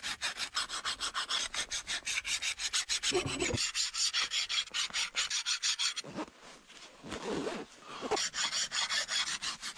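Metal file worked back and forth in quick, even strokes across a forged knife blade. The strokes ease off for about a second around six seconds in, then resume.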